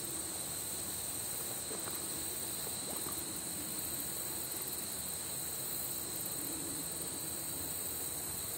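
Steady high-pitched chorus of crickets, unbroken.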